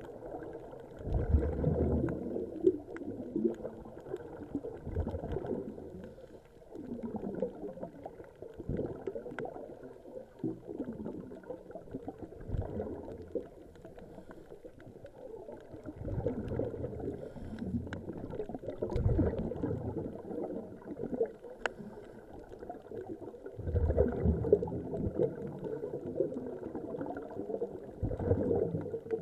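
Scuba regulator exhaust bubbles gurgling underwater in irregular bursts every few seconds, as divers breathe out.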